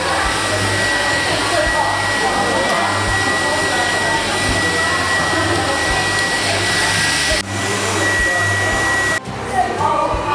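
Steady, fan-like blowing machine noise with a thin high whine running through it. Faint voices sit underneath. It cuts off abruptly about nine seconds in.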